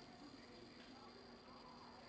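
Near silence: faint room tone of a large indoor arena with a steady low hum.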